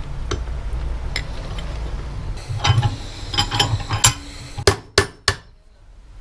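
Hammer striking a steel punch against a small metal part held in a steel bench vise, to break the part open: light metal clinks and taps at first, then sharper strikes, the loudest three in quick succession about a second before the end, with a bright metallic ring.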